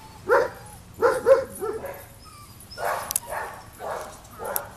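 Cockapoo barking repeatedly: about eight short, sharp barks in two runs with a pause of about a second between them.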